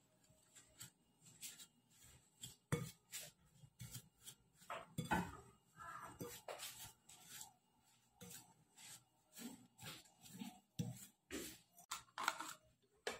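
Wooden spoon stirring crushed graham crackers and melted butter in a bowl, making faint, irregular scrapes and knocks against the bowl's sides.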